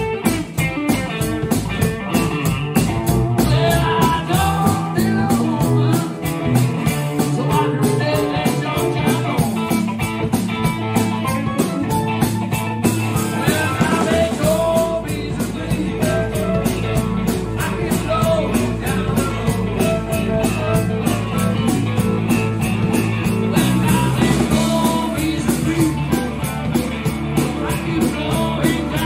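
A rock band playing live: electric guitar, bass guitar and drum kit, with singing.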